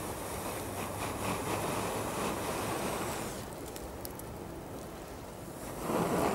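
Breath blown hard into a smouldering tinder bundle to coax a friction-fire ember into flame: a long, rushing blow for about three seconds, a lull, then a stronger blow near the end.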